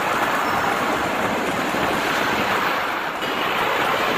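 Steady rushing noise of machinery running in a sheet-metal workshop, with a brief dip about three seconds in.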